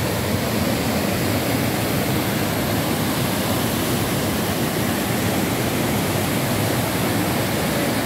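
Wide, low waterfall and the rapids below it rushing, a steady, unbroken roar of water.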